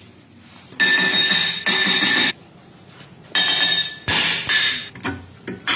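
Hammer blows on a cast-iron drilled brake rotor still seated on the rear hub, about six strikes, each leaving the disc ringing with a bright, bell-like tone. Such blows are typically used to knock a rusted rotor free of the hub.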